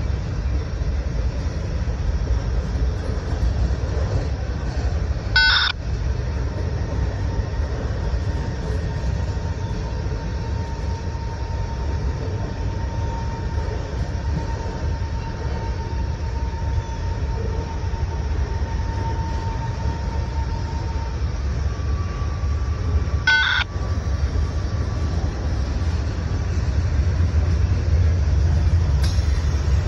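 CSX freight train's container cars and boxcars rolling past with a steady low rumble. Two brief sharp metallic sounds ring out about five seconds in and again near 23 seconds, and a faint steady whine runs through the middle.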